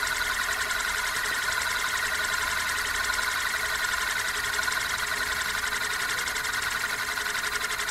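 Euler's disk, a heavy metal disc, spinning and rolling on its edge on a mirrored base, making a steady, fast whirring rattle.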